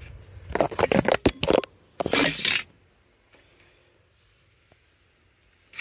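Hard plastic parts being handled: a quick run of clicks and clacks, then a short scraping rustle about two seconds in.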